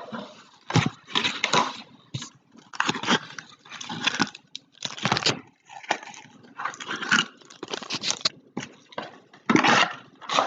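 Plastic card-pack wrappers being crinkled and torn open: an irregular run of short rustling, ripping bursts.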